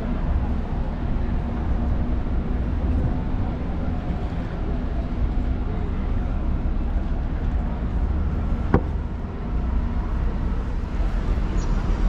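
Outdoor city ambience: a steady low rumble of traffic, with one sharp click about nine seconds in.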